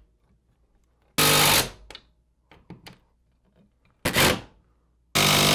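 Cordless impact driver hammering lag bolts tight into wood studs through a metal wall-mount plate, in three short bursts: about a second in, about four seconds in, and near the end. Small clicks come between the bursts.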